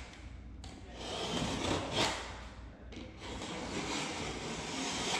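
Utility knife blade drawn along the joint between a painted baseboard and the wall, scoring it so the molding can be pried off: long scraping strokes with a brief pause about three seconds in.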